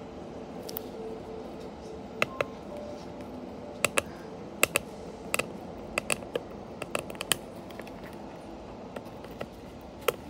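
Fingers and fingernails handling a small cardboard toy-bus box, giving a string of sharp, irregular clicks and taps over a steady background hum.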